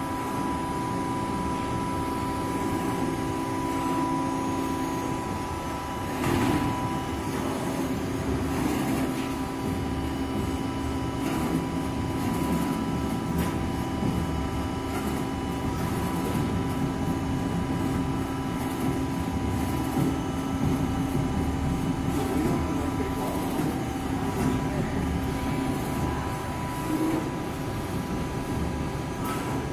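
LVD Strippit V20-1525 CNC turret punch press running through a program: a steady machine hum with a high whine over it, and a few sharp knocks in the first half.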